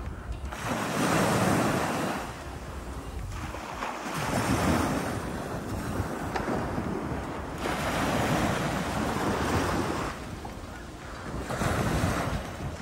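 Small sea waves breaking and washing up onto a sandy beach, swelling in four times, about three seconds apart. A low rumble of wind on the microphone runs underneath.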